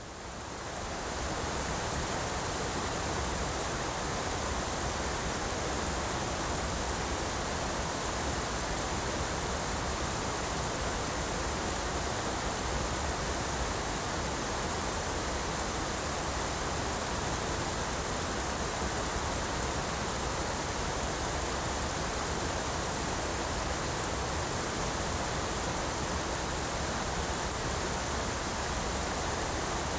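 Large river waterfall: a steady, dense rush of falling water, fading in over the first second or so.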